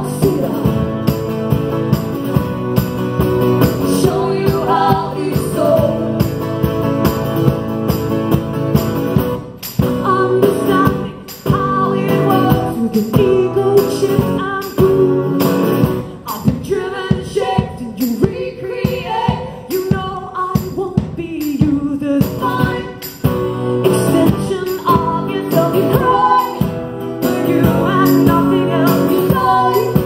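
Live acoustic folk music: two acoustic guitars strummed with two women singing into microphones, over a steady beat.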